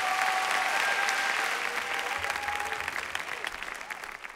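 Audience applauding and cheering after a spoken-word performance, with a few held voices or tones over the clapping. The applause fades out near the end.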